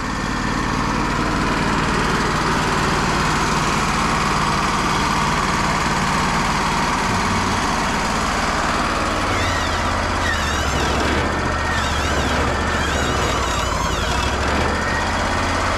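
Sawmill running and cutting through a pin oak log, a steady loud engine and saw noise. From about ten seconds in, the engine note deepens and a wavering high whine rises over it.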